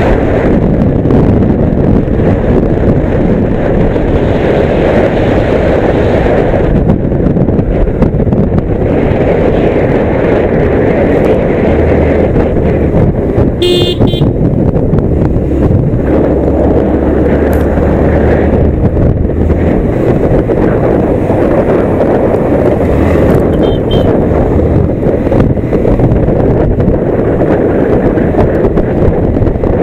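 Steady wind rushing over the microphone of a moving motorcycle, a Yamaha MT-15, with its engine low underneath. A short horn toot sounds about halfway through, and a fainter one later.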